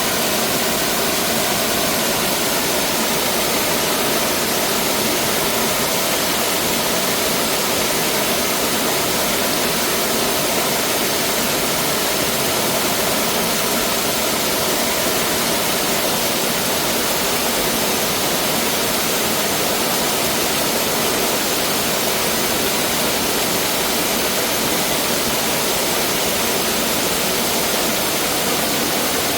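Mountain valley stream rushing over rocks, a steady, dense rush of water.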